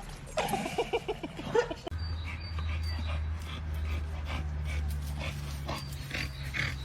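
A dog making short vocal sounds, with a steady low hum starting about two seconds in.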